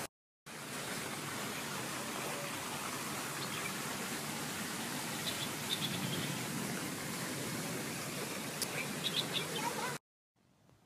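Steady rushing of water in a small stream, with a few brief high chirps about halfway through and again near the end. The sound cuts off suddenly near the end.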